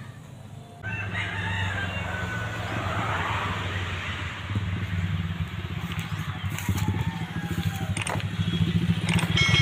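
A rooster crowing once, starting about a second in, over a steady low rumble.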